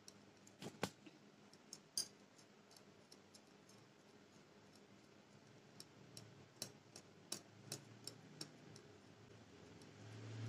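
Wire whisk faintly clicking against a glass bowl as it mixes mango pulp with milk powder, in irregular scattered taps with a small cluster in the second half.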